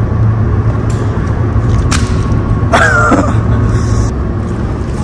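A steady low rumble with a constant hum, a sharp knock about two seconds in, and a short high wavering cry about three seconds in; the hum drops away about four seconds in.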